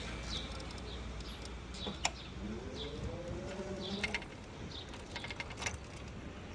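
City street ambience heard from a bicycle: a steady low traffic rumble with small birds giving short, repeated chirps. About two and a half seconds in, a low tone rises in pitch over a second and a half, and a few sharp clicks fall near the middle and end.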